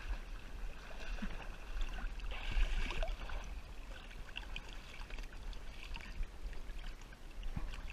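Pond water lapping and trickling against a plastic kayak hull just beside the microphone: a steady wash with small irregular ticks and a low rumble.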